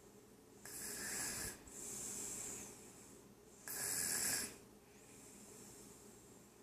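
A toddler snoring, asleep sitting up in a chair. There are two snoring breaths about three seconds apart, each a short louder rasp followed by a softer, longer breath.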